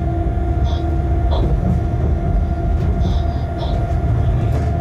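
Locomotive running light, heard from its cab: a steady rolling rumble with a constant hum, and a few short high squeaks as the wheels run through curving track and points.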